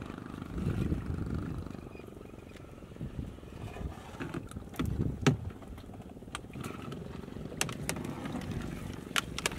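Wet mesh net trap being hauled and gathered out of pond water at the side of a small boat: water sloshing under a steady low rumble, with scattered sharp clicks and knocks, the loudest about halfway through.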